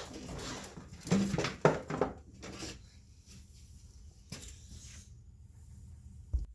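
Scattered rustling and handling knocks, with one sharp click a little under two seconds in. It then goes quieter over a faint low hum, with a short thump near the end.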